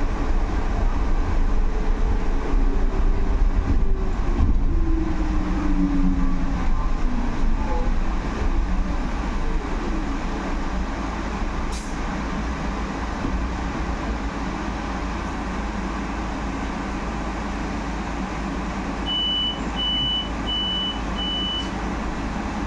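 Inside a Solaris Urbino 18 IV electric articulated bus on the move: a steady low road rumble, with the electric drive's whine gliding down in pitch over the first several seconds as the ride grows quieter. Near the end, four short, evenly spaced high beeps sound from the bus.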